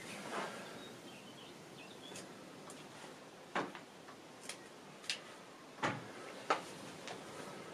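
Faint, irregular clicks and light taps, about nine of them spread across a few seconds, from small hand work with a knife on the piece being shaped.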